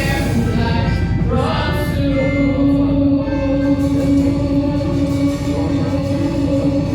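Church worship singing with instrumental accompaniment; from about two seconds in the voices hold one long note to the end.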